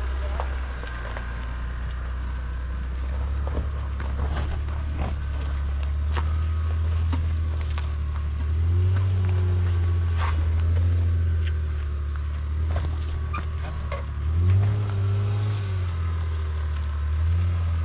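Honda Passport's V6 engine pulling the SUV slowly up a rocky trail, its low steady note swelling in pitch and level a few times as it climbs over rock steps. Scattered clicks and crunches of the tyres on stone.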